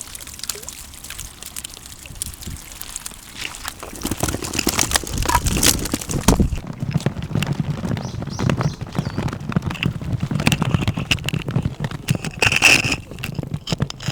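Water sloshing and trickling, mixed with many small knocks and handling noises, growing louder about four seconds in.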